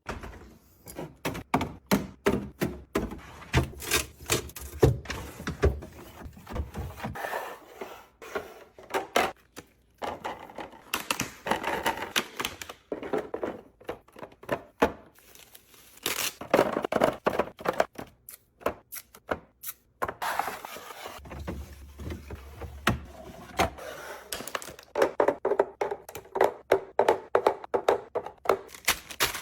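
Groceries and containers being handled and set down while a fridge is restocked: a busy run of sharp plastic and glass clicks, knocks and thunks, with a few brief pauses.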